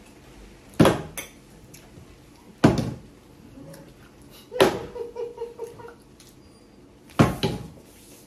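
Plastic water bottle flipped and landing on a wooden table, four knocks about two seconds apart, each followed by a short clatter as it tips over.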